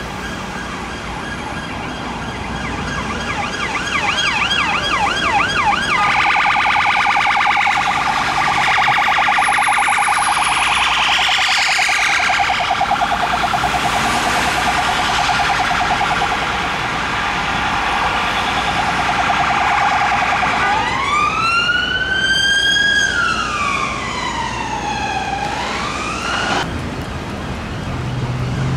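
Police siren on a Volvo XC90 armed response car, over city traffic. It changes tone several times: a rapid pulsing sweep about four seconds in, then a fast warble for a long stretch, then a slow wail rising and falling. Near the end it gives way to plain traffic noise.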